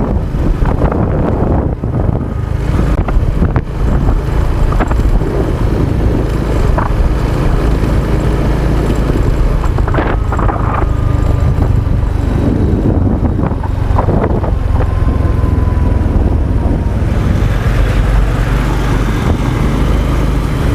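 Wind buffeting the microphone of a Honda XRM 125 motorcycle as it is ridden, with the bike's engine running steadily underneath and a couple of short knocks from bumps.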